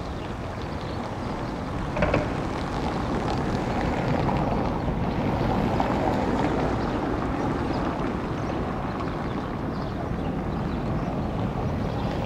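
Small fishing boat's engine running steadily as the boat motors in, slowly growing louder as it comes closer. A brief sharp noise stands out about two seconds in.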